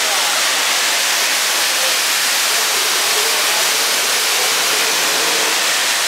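Steady, loud rush of falling water from a waterfall close by.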